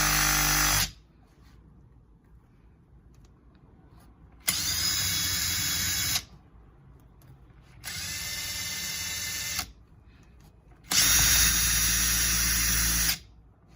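Makita TD172D 18V brushless cordless impact driver running with no load in short trigger pulls: a run ends about a second in, then three more runs of about two seconds each follow with pauses between, the second of them quieter than the others.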